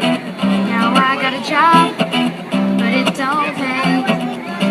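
A singer performing live with strummed acoustic guitar, the sung melody gliding over steady held chords.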